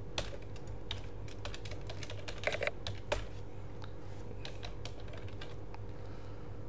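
Computer keyboard being typed on, a password entered at a login prompt: a run of short key clicks, with a quick cluster a little past two seconds and a sharper single click about three seconds in, over a steady low hum.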